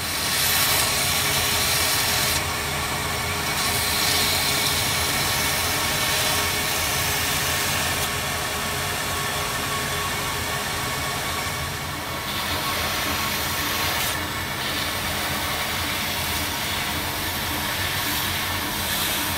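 Belt grinder running while a Timascus (layered titanium) pocket clip is ground on the belt over a small contact wheel. The steady motor hum carries a grinding hiss that drops away briefly a few times.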